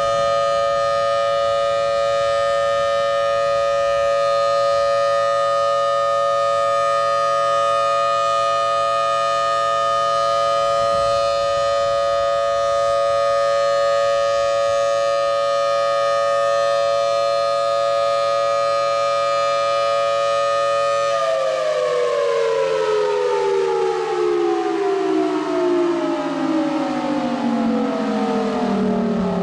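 Federal Signal Thunderbolt 1003 outdoor warning siren sounding a steady alert tone, a chord of several pitches held level. Its rotator is broken, so the horn stays fixed and the sound does not swell and fade. About two-thirds of the way through it shuts off and winds down, all the pitches gliding steadily lower.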